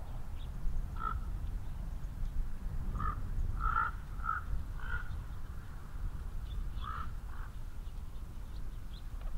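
Crows cawing in short calls: one about a second in, a quick run of about five a couple of seconds later, and two more near the end. A steady low rumble runs underneath.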